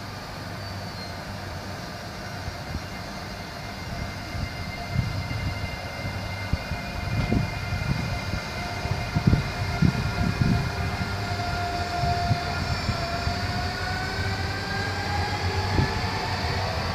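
SNCF Z 24500 double-deck electric multiple unit pulling out, its traction drive whining in several tones that rise slowly as it gathers speed. Under the whine there is a low rumble with irregular low thumps.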